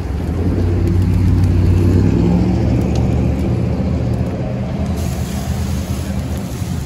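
A vehicle engine running with a low hum, swelling about half a second in and easing off after a few seconds.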